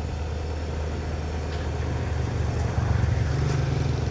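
Sumitomo SH120 A3 hydraulic excavator's diesel engine running steadily, rising in pitch and getting louder about two seconds in.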